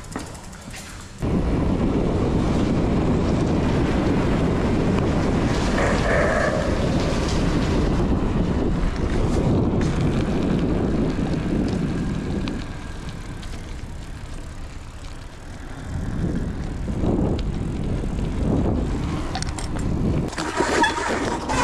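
Wind buffeting a chest-mounted action camera's microphone while a bicycle is ridden: a steady low rumble that starts suddenly about a second in, eases off around the middle and builds again near the end.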